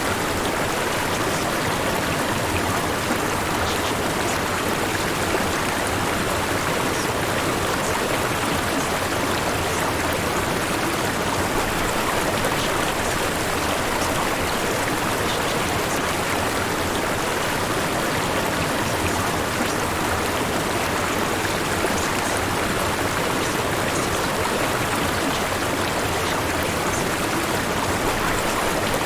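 Steady white noise, an even hiss that sounds like rushing water, unchanging throughout.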